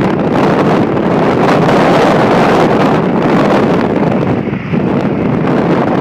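Wind buffeting a phone's microphone from a moving car, over tyre and road noise. A loud, steady rush that dips briefly a little before the five-second mark.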